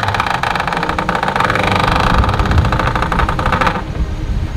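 Electric winch hoisting the mainsail to shake out a reef, its motor running with a fast, even ratcheting click. It cuts off abruptly near the end, leaving wind and water rushing past the boat.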